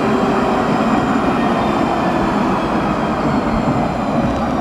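Alstom Citadis X05 tram rolling past at low speed as it comes into the terminus: a steady rolling noise of wheels on rail, with a faint whine higher up.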